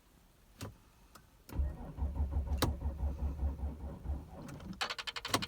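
Starter motor cranking the Audi A6's 2.7 TDI V6 diesel for nearly three seconds, a low rhythmic churning of several beats a second, during a cold no-start. A rapid ticking follows near the end.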